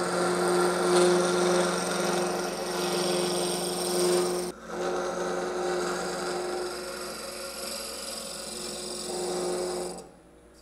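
Gouge cutting into the end grain of a spinning walnut blank on a wood lathe, hollowing the cup of a goblet: a steady scraping cut with a ringing tone, broken off briefly about four seconds in, then stopping near the end.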